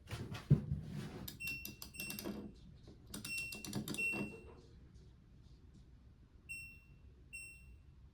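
Washing machine control panel beeping: quick clusters of short high beeps mixed with clicks and knocks, then single beeps about once a second near the end.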